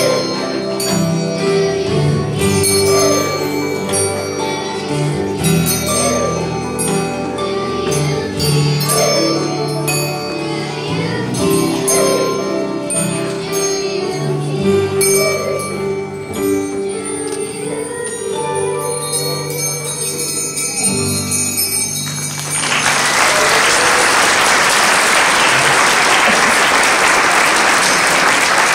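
A Christmas song with jingle bells plays, then stops about 22 seconds in and the audience applauds.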